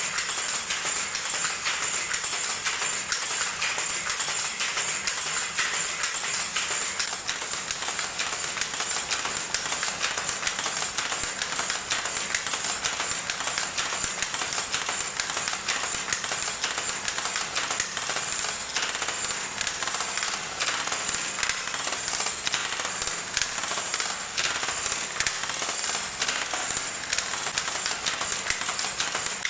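An 80-year-old Hattersley single-width loom running steadily while weaving tweed. Its shuttle, lay and pattern mechanism make a fast, continuous mechanical clatter of rapid knocks that never pauses.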